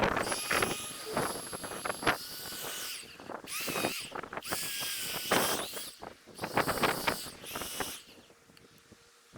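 Bonfire of dried wood and bamboo burning: high, steady whistling hisses in four stretches of a second or two, with sharp crackles and pops between them. This is steam jetting out of heated bamboo sections.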